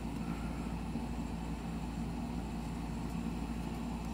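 Steady low hum with a faint hiss: background room noise with no distinct events.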